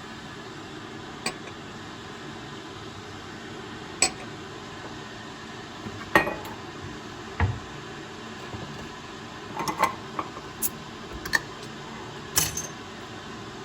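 Kitchenware handled: dishes and utensils clinking and knocking about a dozen times at irregular intervals, over a steady background hiss.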